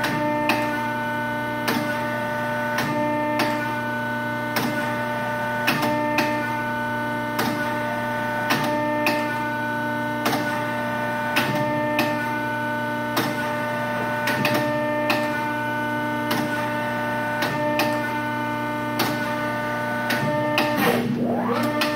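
150-ton Pacific hydraulic press running, its hydraulic pump humming steadily with sharp clicks about once a second as the press cycles. Near the end the pump's pitch dips and climbs again.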